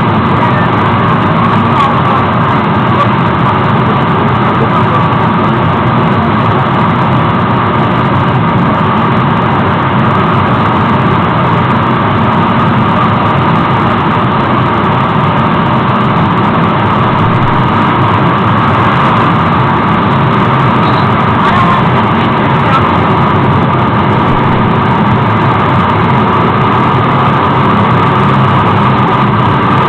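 Waterfall: loud, steady rush of falling water with no change throughout.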